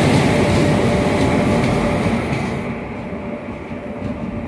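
Express train coaches running past close by on the adjacent track, a loud rush of wheels on rails that eases off about two and a half seconds in.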